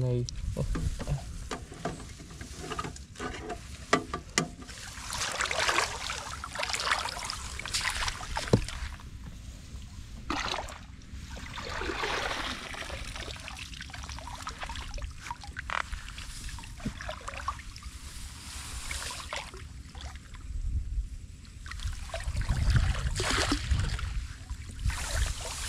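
Shallow muddy water splashing and sloshing in irregular bouts as a woven bamboo basket is pushed and lifted through a flooded rice paddy, with water trickling back out through the weave and a few light knocks.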